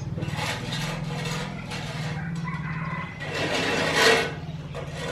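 A few rough rasping strokes, like hand-tool work on wood, the loudest about four seconds in, over a steady low mechanical hum.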